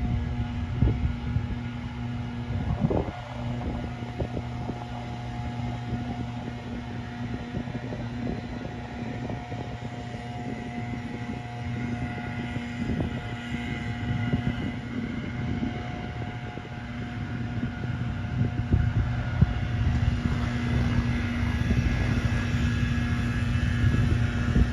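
Cessna 208B Grand Caravan's single turboprop engine and propeller running with a steady, even drone.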